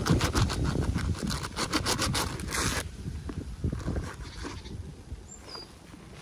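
Toy packaging being opened by hand: a rapid run of scratchy tearing or zipping strokes, about seven a second, that stops nearly three seconds in, followed by lighter clicks and rustles of handling.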